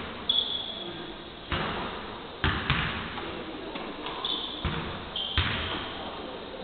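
Basketballs bouncing on a hardwood court in a large, echoing gym: irregular thuds, about one a second, with a few short high squeaks between them.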